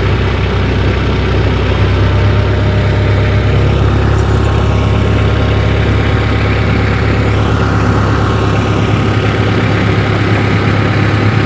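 Tractor engine running steadily while the tractor creeps forward to draw a tire chain over the tire.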